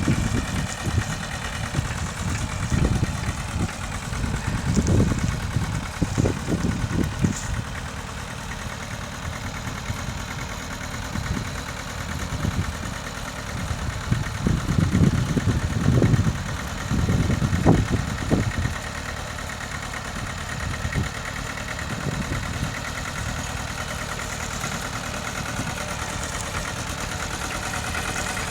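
Mitsubishi tractor engine running steadily while ploughing, with irregular bouts of louder low rumbling a few seconds in and again just past the middle.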